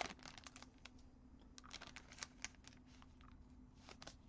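Quiet, light clicks and rustles of a stack of trading cards being handled, with a brief crinkle of the foil pack wrapper at the start, over a faint steady hum.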